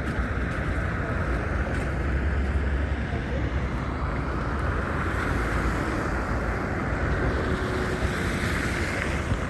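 Wind buffeting a handheld phone's microphone in a snowstorm: a steady low rumble with a hiss over it.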